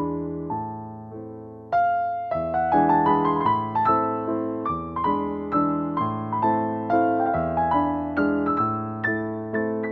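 Background piano music: a steady run of struck notes, each ringing and fading, growing fuller about two seconds in.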